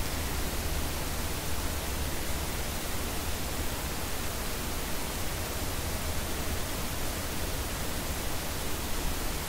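Steady hiss of a microphone's recording noise floor, with a low hum underneath.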